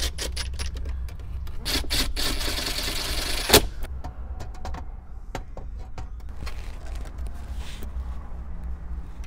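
Ridgid cordless driver running a screw into the dash kit, a dense whirring rattle for the first three and a half seconds, ending in one sharp click. Then scattered light clicks of plastic parts being handled over a steady low hum.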